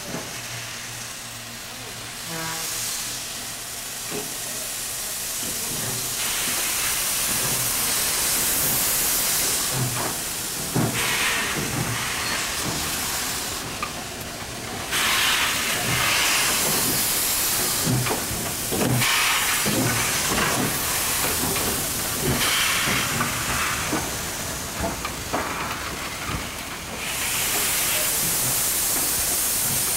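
Alco Tipo 70 steam locomotive standing under steam, with steam hissing from around its cylinders. The hiss swells and eases in long surges, with scattered low knocks.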